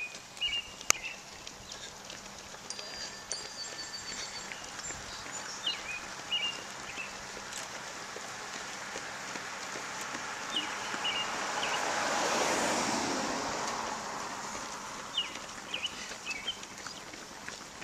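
A car passing on the road, its tyre and engine noise swelling to a peak about twelve seconds in and then fading. A songbird repeats a short phrase of chirps about every five seconds.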